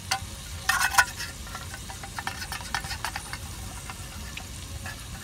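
A pan sizzling softly over heat, with scattered crackles and a cluster of louder clicks about a second in.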